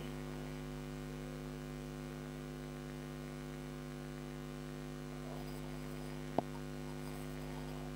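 Steady electrical mains hum with its overtones, and a single sharp click about six and a half seconds in.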